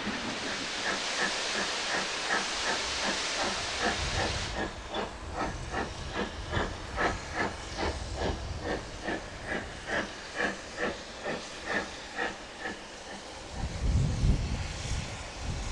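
Midland 4F 0-6-0 steam locomotive 43924 working steadily on approach, its exhaust beating evenly at about three beats a second. A steady steam hiss runs over the beats for the first four seconds or so and cuts off suddenly; near the end a loud low rumble.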